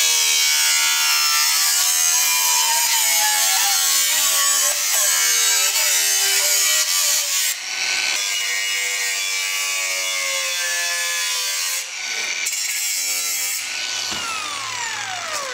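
Angle grinder with a thin cut-off disc cutting into a sheet-steel wheel-arch panel, its motor pitch wavering under load and easing off briefly a couple of times. Near the end the grinder is released and its whine falls steadily as the disc spins down.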